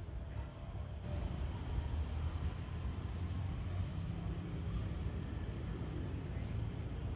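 Night insects chirping in a steady, fast pulsing high trill, over a low steady rumble.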